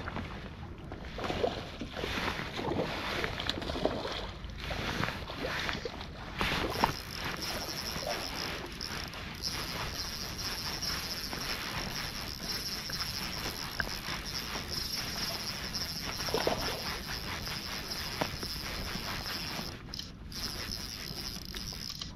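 Wind and river-water noise on the microphone, with scattered knocks in the first several seconds; from about seven seconds in a steady high insect trill joins and carries on until near the end.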